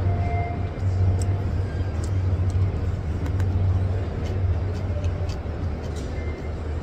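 A plastic spoon scraping and clicking lightly in a plastic food box while someone eats fried rice, over a steady low hum.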